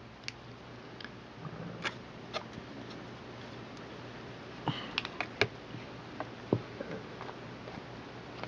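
Scattered light clicks and taps of a small object being handled, over a faint steady low hum.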